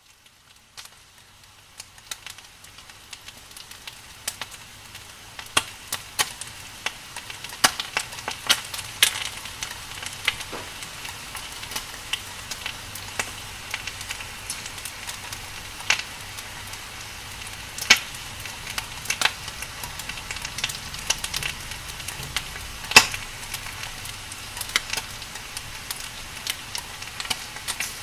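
Burning wood or charcoal fire crackling: a steady hiss with irregular sharp pops, a few much louder than the rest, fading in over the first several seconds.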